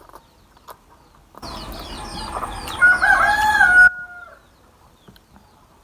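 A rooster crowing once, about two seconds in, ending on a long held note that drops off at the end.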